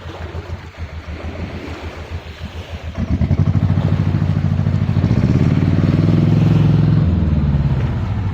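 An engine passing close by. Its low hum swells in about three seconds in over gusty wind rumble, is loudest near the end, then begins to fade.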